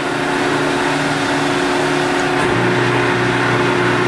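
Cincinnati Autoshape CNC press brake running idle: a loud, steady motor-and-pump hum, with a lower tone that cuts in and out every half second or so.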